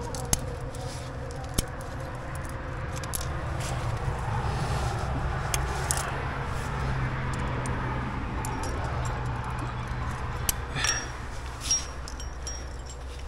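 Climbing gear clinking: wired nuts and carabiners knocking together as they are handled and racked on a harness, a few sharp clinks, one ringing briefly near the end, over a steady low rumble.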